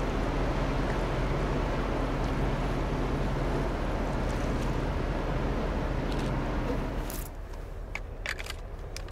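Steady low hum of the passing cruise ship Brilliance of the Seas, with a noisy wash over it. About seven seconds in it drops away to quieter ambience with a few short, high sounds.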